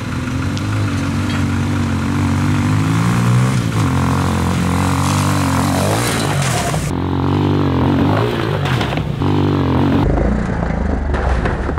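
250cc dirt bike's single-cylinder engine revving hard under full throttle, its pitch climbing and dropping as it accelerates toward and up a jump ramp. The sound changes abruptly a few times as it cuts between takes of the same run.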